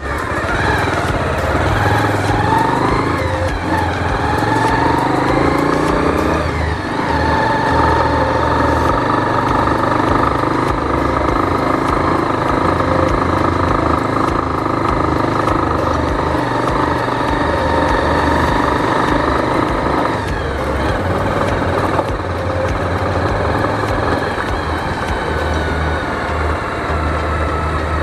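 Motorcycle engine running as the bike is ridden along a dirt track. Its pitch rises over the first several seconds, drops about seven seconds in, then holds fairly steady, shifting again about twenty seconds in.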